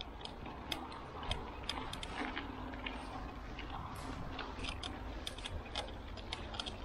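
Scattered light clicks and ticks at irregular intervals, over a steady low background hum.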